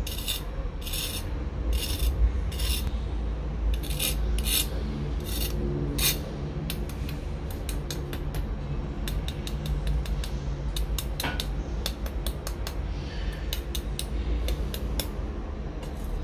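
Knife blade scraping and tapping across the crisp, blistered skin of fried pork belly (lechon kawali), a series of short rasping scrapes in the first half and lighter clicks later: the crackling is crunchy and dry.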